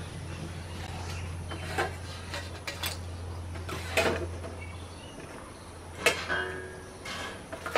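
Stainless steel plates and bowls clinking as they are picked up and set down, several separate knocks, some with a short metallic ring.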